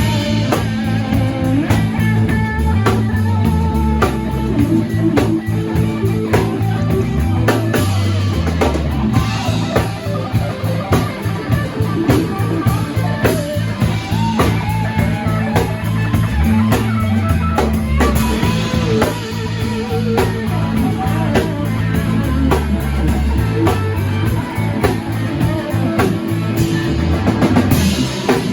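Live rock band playing a song: guitar lines over bass and a drum kit, with steady drum hits throughout.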